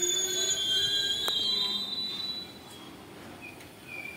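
ICF passenger coaches rolling slowly past as the train pulls into the platform, with high-pitched squealing from the wheels and a single sharp clank about a second in. The sound drops off after about two and a half seconds, leaving a fainter squeal as the last coach goes by.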